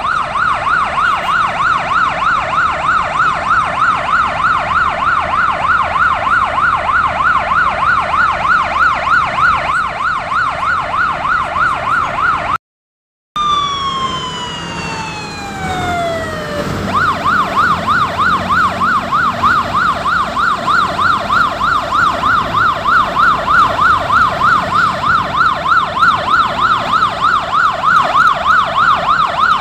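Electronic emergency-vehicle siren on a fast yelp, sweeping up and down about three to four times a second. About halfway through it drops out briefly, comes back as one long falling glide, then the fast yelp resumes; a faint rumble of traffic lies underneath.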